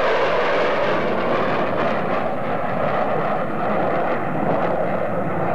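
Rockwell B-1B Lancer's four General Electric F101 turbofans roaring steadily as the bomber makes a low display pass and flies away.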